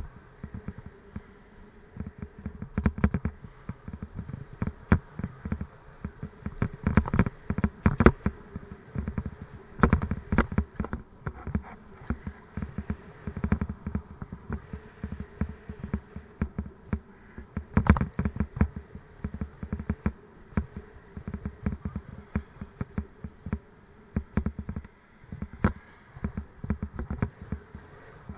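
Raleigh Mustang Elite bicycle rattling and knocking as it rides over rough, bumpy road, with a faint steady buzz underneath. There are irregular jolts throughout and several heavier bunches of knocks.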